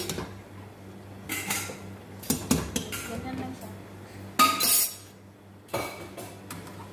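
Metal cooking utensils clattering against pots and pans on a gas stove: a pot lid set down on a metal pot and a spatula stirring in a frying pan. There are four separate clatters, the loudest about four and a half seconds in.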